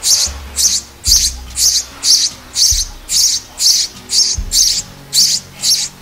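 A sparrow chirping steadily, about two short high chirps a second, over background music with low held bass notes.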